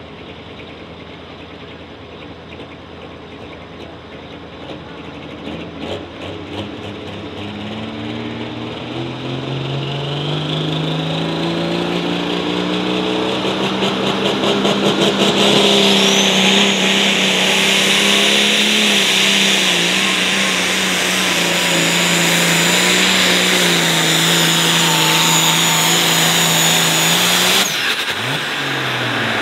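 A Heavy Super Stock pulling tractor's turbocharged engine revs up over several seconds, then runs at high, steady revs under load as it pulls the sled, with a thin high whine over it.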